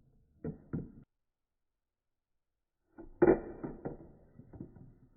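Knocks and clicks of hard toy pieces: two sharp knocks, a silent gap, then a louder knock about three seconds in followed by a run of lighter clicks.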